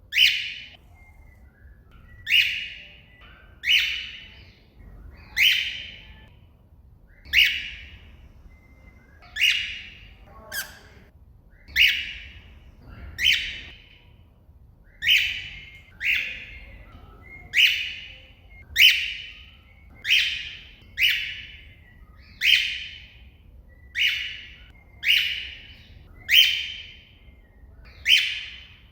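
Cockatiel giving its loud contact call over and over, about twenty short falling calls a second or so apart, calling out to another cockatiel.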